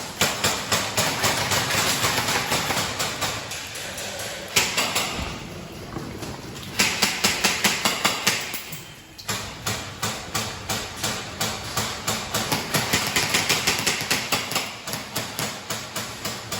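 Airsoft guns firing in rapid runs of sharp clicks, several shots a second. The firing eases off twice, briefly, before the rapid clicking resumes.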